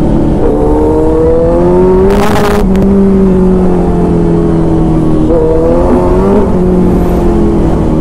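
Kawasaki Z900's inline-four engine and exhaust pulling in third gear: the revs climb for about two seconds, then fall away as the throttle is eased. A short rise in revs comes later before they drop again. A brief rush of noise sounds about two seconds in.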